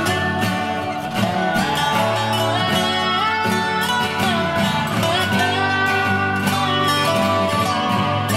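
Background music: a country-style tune led by guitar, with a steady strummed beat.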